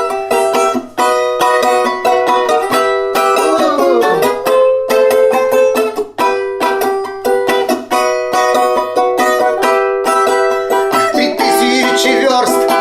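Balalaika strummed with a fast tremolo, playing the instrumental melody of a folk song.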